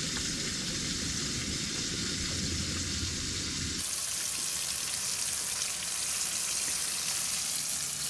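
Breaded fish pieces frying in hot oil in a small pan over a portable propane stove, a steady sizzle. A low rumble sits underneath for the first few seconds, then about four seconds in the sizzle turns close, bright and hissy.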